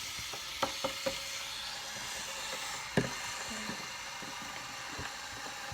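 A few light clicks and taps of plastic toy parts being handled, one louder knock about three seconds in, over a steady background hiss.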